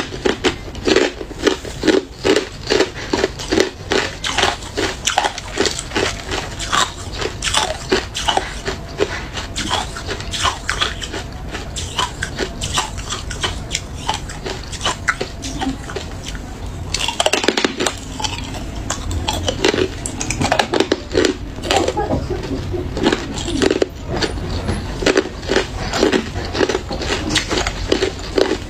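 Chunks of hard clear ice being bitten and chewed close to the microphone: a rapid, continuous run of sharp cracks and crunches.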